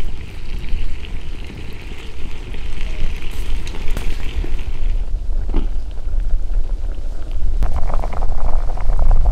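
Wind rumbling on the microphone over a crackling wood fire. About two thirds of the way through, water bubbling at a rolling boil in a pot joins in.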